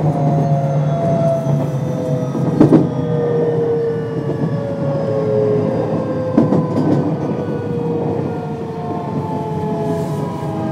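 JR West 521 series electric train with Toshiba IGBT-VVVF inverters, heard from inside the car: the traction motors' whine, several tones at once, falls slowly in pitch as the train slows for a station. A few double clacks of the wheels over rail joints come through it.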